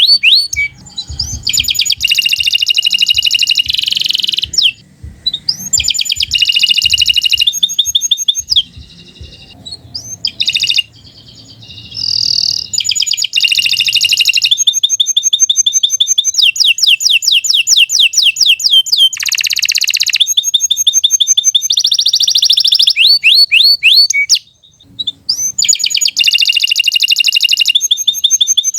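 Domestic canary singing a long, loud song of rapid trills and fast repeated notes, broken by short pauses about nine and eleven seconds in and again near twenty-five seconds.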